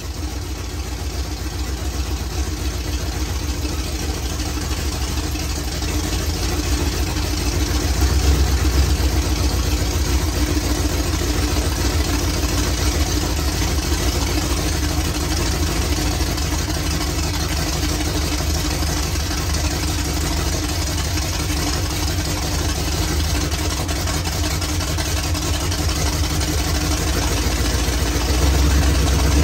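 1977 Ford F-150's 351M V8 running steadily at idle, a little louder about seven seconds in and again near the end.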